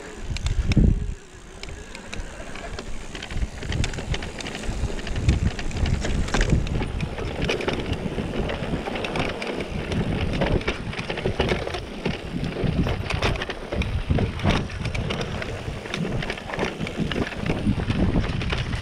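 Mountain bike descending a rough dirt singletrack: tyres crunching over dirt and stones, the bike rattling with many quick knocks and clicks, and wind buffeting the microphone. A heavy thump about a second in is the loudest moment.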